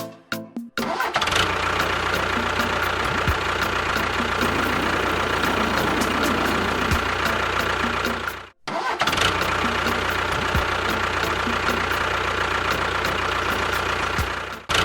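An engine running steadily, broken by a brief cut about eight and a half seconds in.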